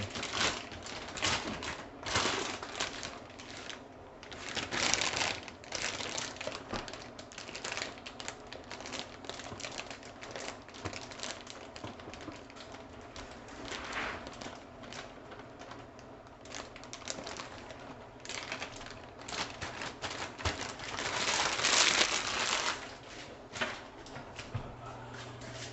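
Flour being scooped and added to a blender jar: a steady run of small clicks, taps and rustles, with a few louder second-long rushes of noise.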